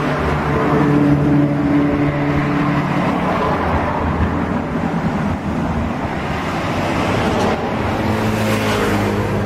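Intercity bus engine running under way over steady road and tyre noise; the engine note shifts pitch a few times.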